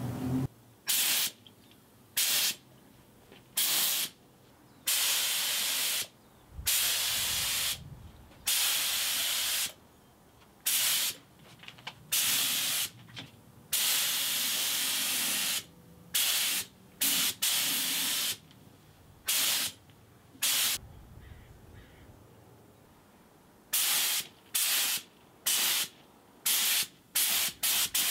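Gravity-feed air spray gun spraying Cerakote in repeated bursts as the trigger is pulled and released, each from about half a second to two seconds long. There is a pause of a few seconds past the middle and a run of quick short bursts near the end.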